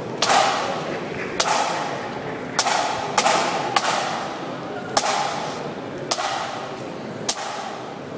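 Sharp, echoing clicks keeping a slow marching beat, about one every second and a quarter, with a couple of quicker extra taps near the middle, as a pipe band marches without its pipes playing. The clicks ring out under a large stone arch over a low crowd murmur.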